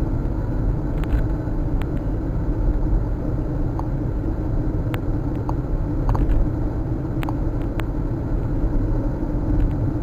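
Road noise inside a moving car's cabin: a steady low rumble of engine and tyres on asphalt, with a few light clicks here and there.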